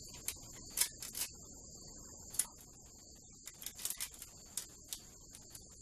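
Aluminium foil tape crinkling and clicking as it is pressed and smoothed into a guitar body cavity with a knife blade: scattered sharp crackles, sparser in the middle and busier near the end, over a faint steady high-pitched whine.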